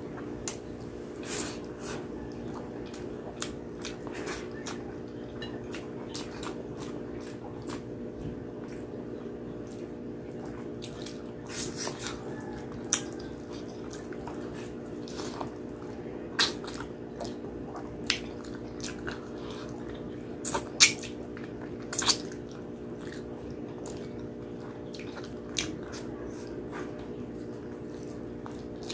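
Close-up wet chewing and biting on braised pork hock, sticky skin and tendon, with scattered lip smacks and sharper smacks now and then, the loudest about three-quarters of the way through. A steady low hum runs underneath.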